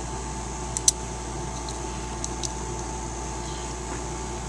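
A steady background hum and hiss, with a few light clicks about a second in and again near two and a half seconds: the plastic parts of a toy action figure being handled.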